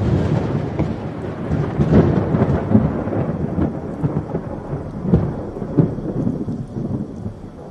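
Thunderstorm: rolling thunder over steady rain, growing fainter over the last couple of seconds.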